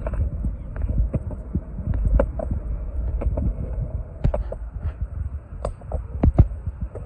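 Penny board wheels rolling over a concrete sidewalk: a steady low rumble broken by frequent, irregular sharp clacks.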